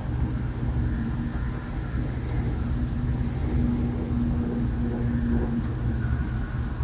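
Electric motors and gearing of several Telco motionette Christmas figures running together: a steady low hum and rumble, with a thin higher whine added for a few seconds in the middle.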